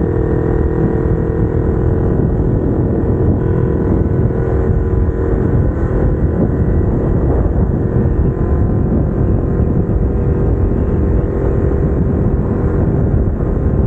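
Kawasaki Ninja 250R parallel-twin engine running at steady revs through aftermarket headers and exhaust while riding, over a dense low rumble.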